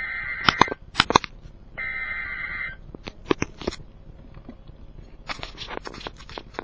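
Emergency Alert System SAME header: two short buzzy data bursts of paired warbling tones, about a second apart, heard through a speaker. Sharp clicks and knocks are scattered through it.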